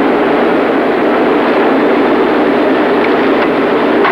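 Steady, even hubbub of a large arena crowd, heard through an old, narrow-band TV broadcast soundtrack.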